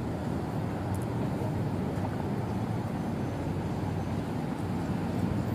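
Steady road traffic noise from cars on a busy multi-lane street, a constant low-pitched hum with no single standout event.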